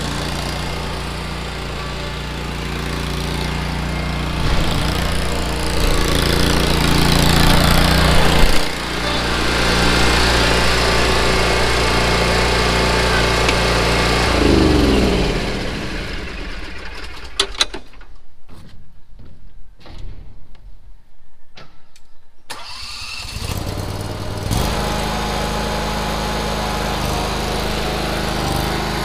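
Exmark Vantage mower's engine running steadily while mowing grass with a mulching kit fitted. Past the middle the engine sound drops away for several seconds, leaving a few clicks, then comes back steady near the end.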